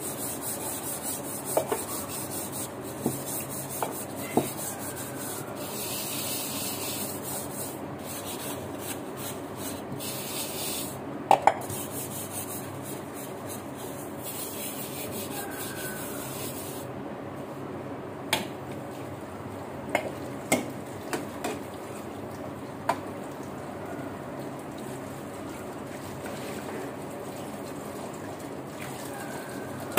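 Metal kitchen bowls being scrubbed by hand at a sink: steady rubbing on metal, with about a dozen sharp clinks of steel and aluminium dishes knocking together, several bunched together past the middle.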